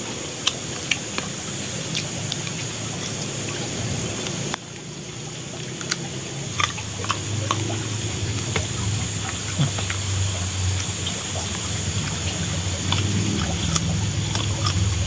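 Scattered short mouth clicks and smacks of someone eating with their fingers, over a steady background hiss. From about four and a half seconds in, a low hum comes up and grows louder toward the end.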